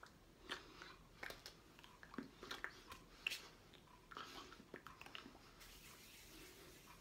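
Faint, scattered clicks and smacks from a person signing: lip and mouth noises and hand contact, against near-silent room tone.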